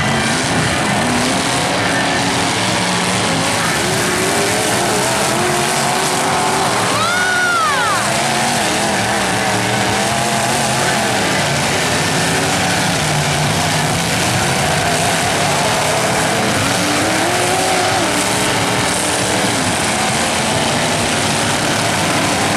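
Several demolition-derby pickup trucks' engines running and revving together, their overlapping pitches wavering up and down over a dense wash of noise. About seven seconds in, a brief high squeal rises and falls.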